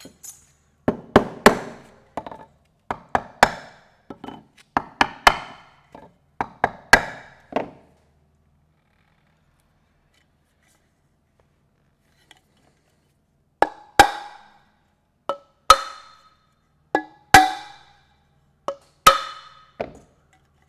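Sharp knocks from working a forming tool loose from a carbon fork's crown race seat: a quick run of about a dozen hard taps, the first of them from a plastic-headed mallet, then after a pause about seven more knocks that ring briefly.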